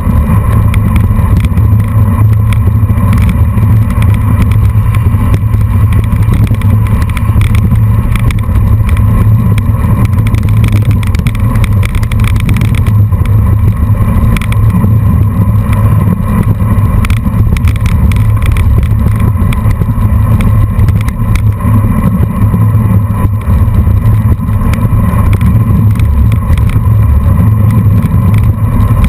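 Steady loud rumble of wind buffeting the microphone, mixed with tyre noise from a road bike riding fast on a gravel road, with scattered small knocks from the rough surface.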